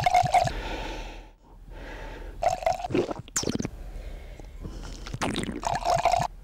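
Wine tasting: red wine poured from a bottle into a glass, then several loud slurps as air is drawn noisily through a mouthful of wine.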